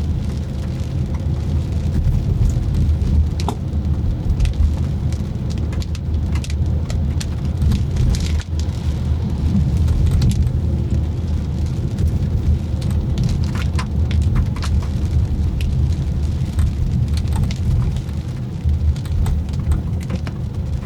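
Raindrops tapping on a moving car in irregular sharp ticks, over the car's steady low driving rumble.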